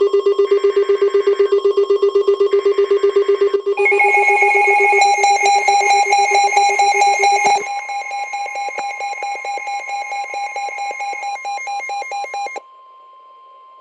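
Emergency alert attention signal: loud, rapidly pulsing electronic tones that step to new pitches several times. About twelve and a half seconds in, it drops to a quieter steady tone.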